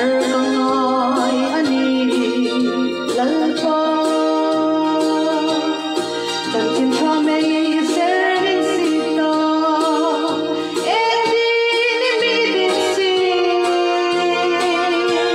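Song: a woman singing a slow melody with vibrato over electronic keyboard accompaniment.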